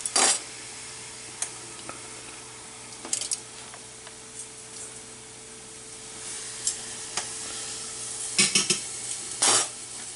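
Chuck roast searing in hot oil in a Power XL electric pressure cooker: a steady sizzle broken by sharp crackles and pops every second or two, bunched together near the end, over a faint steady hum.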